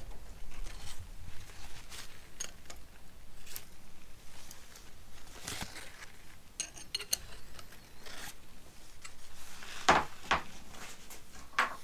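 Metal spanner clicking and scraping against the rocker shaft bolts of a Honda CB750 cylinder head as they are slackened off, with scattered sharp metal clinks, the loudest about ten seconds in.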